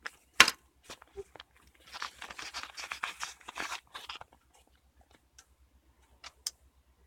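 Cosmetic packaging being handled: a sharp click about half a second in, then a couple of seconds of crinkling, crackly rustle, and a few light clicks near the end.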